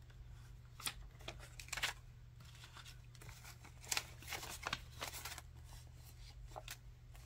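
Paper dollar bills being counted and flicked through by hand: several brief, crisp rustles and snaps of the notes, spaced irregularly, over a faint steady low hum.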